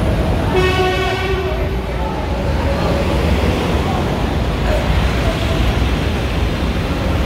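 Heavy street traffic and a dump truck's engine, a steady low rumble. A vehicle horn sounds for about a second shortly after the start, and voices can be heard underneath.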